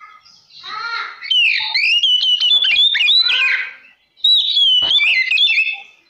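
Oriental magpie-robin singing: two loud phrases of rapid, varied whistled notes that jump up and down in pitch, with a short break about four seconds in.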